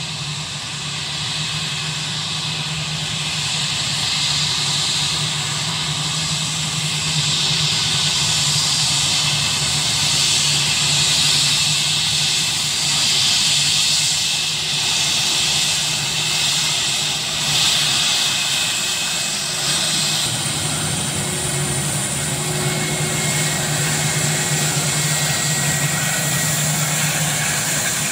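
Airbus A320-232's two IAE V2500 turbofan engines running at taxi power as the jet rolls past, a steady jet whine and hiss with a constant low hum. It grows louder over the first few seconds and stays loud.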